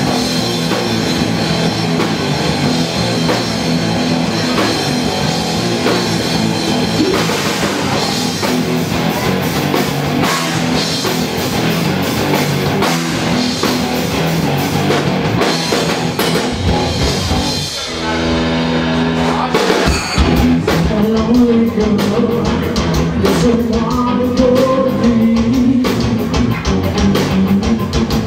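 Rock band playing live: drums, guitar and singing. About eighteen seconds in the drums drop out briefly, then the band comes back in over a fast, even beat.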